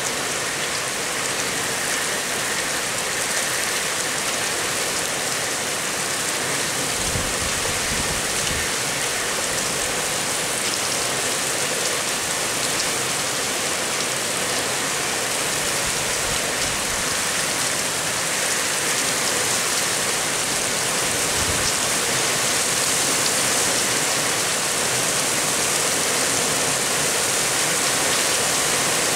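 Steady rain from a squall-line storm, an even hiss, with brief low rumbles about seven seconds in and again near twenty-one seconds.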